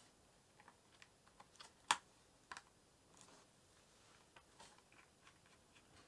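Faint scattered clicks and taps of an M.2 SSD with its metal cover plate being handled and seated into a laptop's M.2 slot, the sharpest click about two seconds in.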